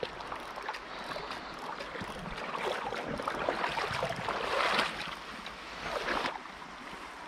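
Water splashing and sloshing in irregular bursts, loudest about four to five seconds in and again around six seconds, over the steady rush of a small river.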